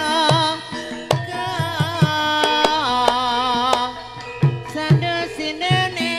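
A female sinden sings a wavering, ornamented vocal line into a microphone over Javanese gamelan accompaniment, with repeated low hand-drum strokes from the kendang.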